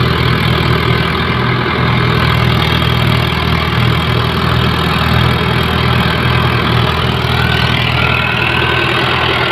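Mahindra Arjun tractor's diesel engine running steadily under heavy load as it hauls a fully loaded trolley up a dirt slope, its front wheels lifting off the ground.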